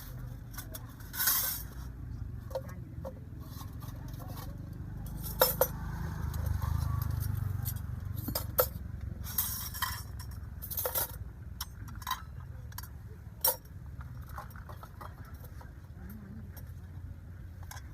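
Scattered light clinks and knocks of dishes and utensils being handled, about a dozen separate strikes, over a steady low rumble that swells midway.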